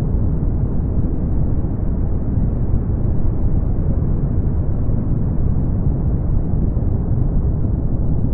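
Brown noise: a steady, deep rushing hiss, strongest in the low end and with nothing in the highs, unchanging throughout.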